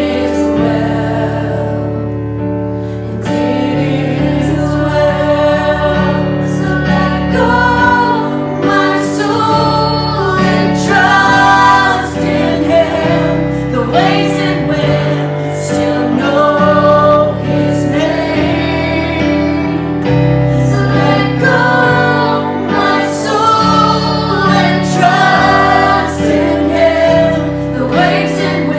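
Worship song being performed: voices singing together over a band, with a moving bass line and cymbal ticks.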